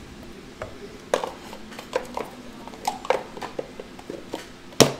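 Trading cards and a cardboard card box being handled on a tabletop: scattered light clicks and taps, with a sharper knock near the end.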